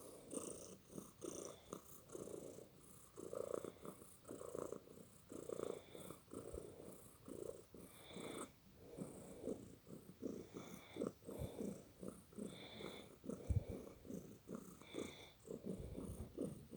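A sleeping cat snoring: a soft, rhythmic rasp with each breath, some breaths carrying a short high whistle. A single brief low bump about two-thirds of the way through.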